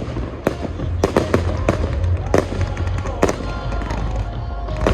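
Fireworks display: about eight sharp shell bursts go off at irregular intervals, over a steady low rumble.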